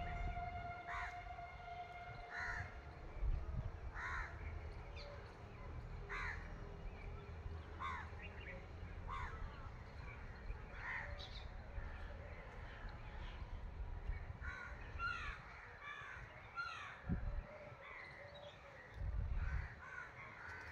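Crows cawing again and again, a short harsh call every second or two, with a quicker run of calls a few seconds from the end. A low rumble sits underneath and swells briefly near the end.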